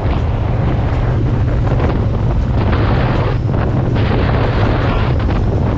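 Heavy wind noise buffeting the microphone at road speed, over the steady low drone of a Triumph Bonneville T120's 1200 cc parallel-twin engine cruising.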